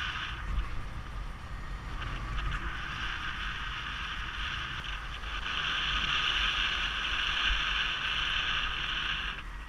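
Wind noise from the airflow past the camera microphone in paraglider flight: a low buffeting rumble under a steady hiss, the hiss growing louder in the second half and dropping off just before the end.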